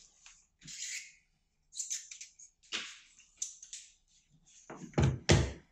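Hands handling a clamp meter and tools on a work table: scattered rustles and clicks, then two heavy knocks about five seconds in as things are set down or picked up.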